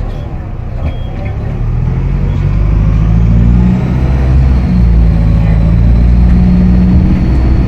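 Optare Solo SR bus's diesel engine pulling under power, getting louder about three seconds in, with the turbocharger's thin high whistle rising and then holding steady above the engine.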